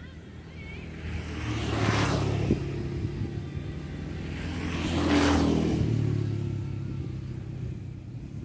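Two motor vehicles passing by one after the other, each engine and tyre sound swelling and fading, the first loudest about two seconds in and the second about five seconds in.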